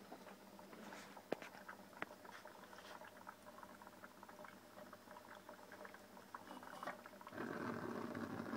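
Homemade gasoline-vapour stove: faint irregular crackling and bubbling, then about seven seconds in a louder steady rushing noise of the burner starts and keeps going.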